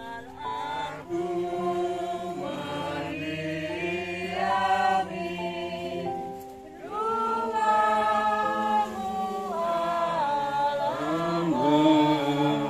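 A choir singing a slow hymn in long, held notes, with a short pause a little after the middle before the singing resumes.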